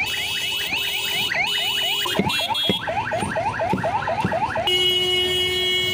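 Electronic siren in the street, sounding rapid rising whoops about four times a second, then switching to a steady held tone about three-quarters of the way through. A few dull knocks come from a pestle pounding in a stone mortar.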